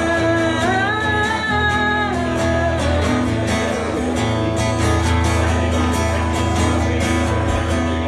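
A woman singing to her own strummed acoustic guitar. The voice holds long, gliding notes for the first three seconds or so, then the guitar strumming carries on.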